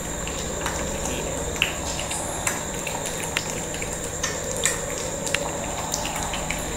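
Shih Tzu puppies' claws and paws making scattered light clicks on a hard floor as they play, over a steady background hum.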